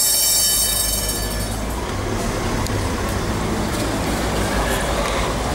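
Steel tram wheels squealing on the rails, high-pitched, for about the first two seconds, then dying away. Under it runs the low rumble of a Remodelado tram and idling cars.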